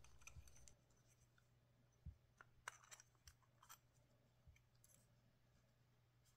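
Near silence: a few faint clicks and taps as small flashlight parts are handled and fitted together by hand, most of them in the middle of the stretch, over a faint low hum.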